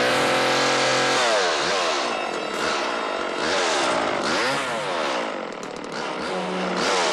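Two-stroke chainsaw held at a steady pitch for about a second, then revved up and down over and over, its pitch rising and falling about once a second.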